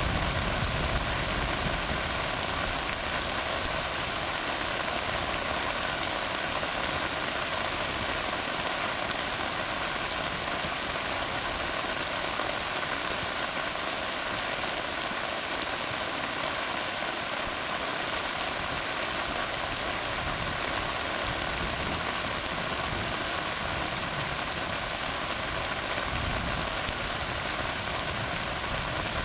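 Steady rain falling on a tar road, an even hiss of drops hitting wet asphalt.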